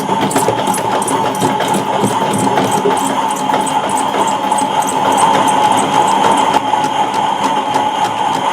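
Washmatic toy washing machine running its spin cycle: a small electric motor whirring steadily with a high whine, over a fast regular ticking from the spinning drum.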